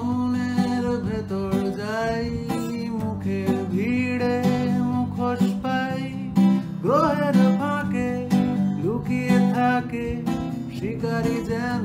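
A man singing a Bengali song over strummed acoustic guitar. His voice swoops up to a high note about seven seconds in.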